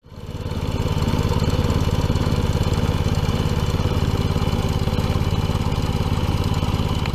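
BCS two-wheel tractor's small engine running steadily while it drives the Power Potato Digger through the soil, with a rapid, even pulse. It fades in over the first second.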